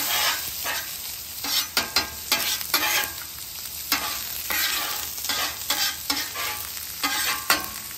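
Long metal spatula scraping repeatedly across a hot steel Weber griddle top, pushing diced onions and crisped bits of rendered ribeye fat, with the food sizzling in the beef fat under the scrapes.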